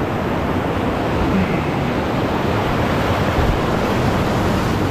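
Whitewater rapids rushing steadily over rocks.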